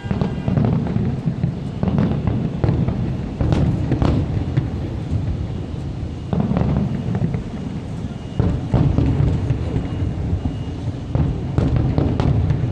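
Aerial fireworks shells bursting in an irregular run of booms, about eight in all, each a sharp crack followed by a low rumble.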